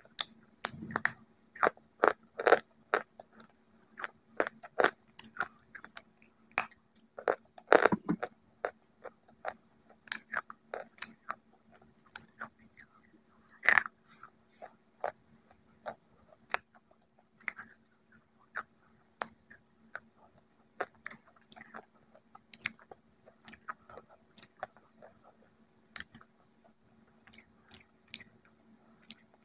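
Close-up crunching and chewing of a wet white slate bar: crisp, irregular crunches, densest in the first three seconds and around eight seconds in.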